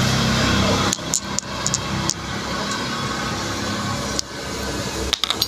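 Steady background noise with a few light, sharp metallic clicks, about a second in and again near the end, as small steel parts are handled.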